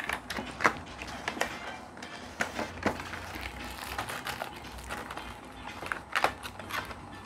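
Plastic packaging crinkling and rustling as it is handled, with irregular sharp crackles, the loudest a couple near the end.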